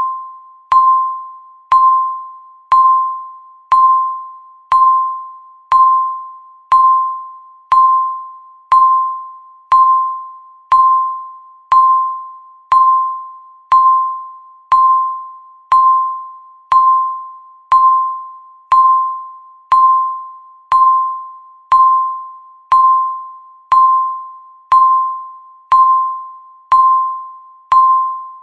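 Countdown timer's electronic beep sounding once every second: a single mid-pitched tone that starts sharply and fades quickly, marking each second left.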